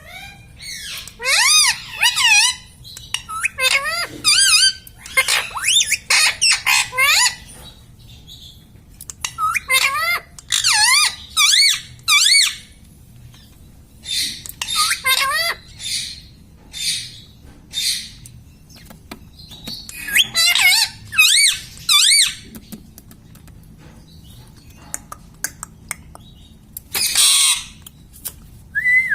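Pet ringneck parakeet calling and chattering in bursts of wavering, warbling calls, with a harsh squawk near the end.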